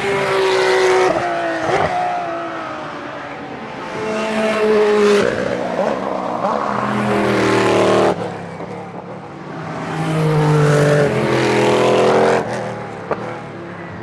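Race cars, sports prototypes and GT cars, passing one after another at racing speed, in about four loud waves. The engine notes fall and rise in pitch as the cars brake, shift and accelerate through the corner. The sound cuts off abruptly twice.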